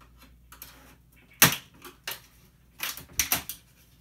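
A series of sharp clicks and snaps as the thin sheet-steel frame of a TV screen panel is prised loose from its latches, the loudest about a second and a half in and a quick cluster near the end.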